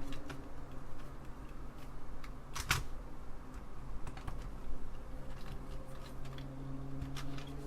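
Scattered light clicks and ticks of a hand screwdriver driving small screws into the Apple II Plus keyboard's assembly, with one louder click about two and a half seconds in. A steady low hum runs underneath.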